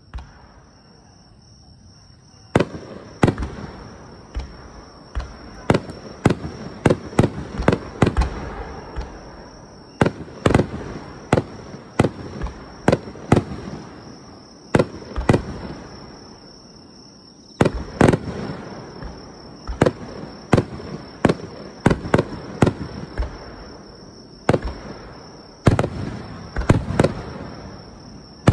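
Aerial firework shells bursting in rapid volleys: sharp bangs several a second, each trailing into a rumbling echo. They start after a couple of seconds of quiet, ease off into a short lull about halfway, and then resume.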